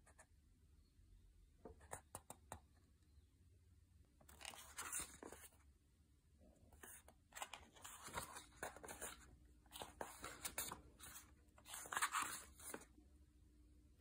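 Paper pages of a book being turned, rustling in four short bursts, with a few light taps before them.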